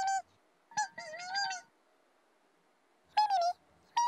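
Tittifers, the show's pink crested cartoon birds, singing a few short, high, warbling calls. There is a silent gap of about a second and a half in the middle.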